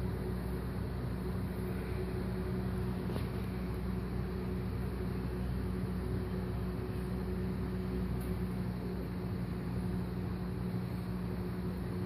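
A steady mechanical hum with a constant low drone and a noisy hiss, even in level throughout, with one faint click about three seconds in.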